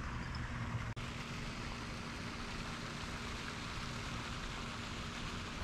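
Steady splashing hiss of a pond aerator fountain, with a faint steady hum under it; the sound drops out for an instant about a second in.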